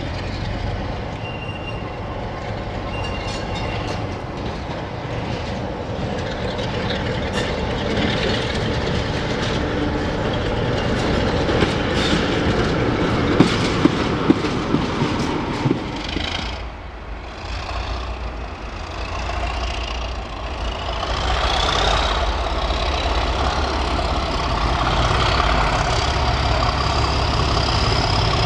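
A diesel locomotive running slowly over yard pointwork, its engine rumbling, with several sharp clicks from the wheels over rail joints and points. Then a pair of diesel locomotives approach, the engine noise building with a whine that rises steadily in pitch.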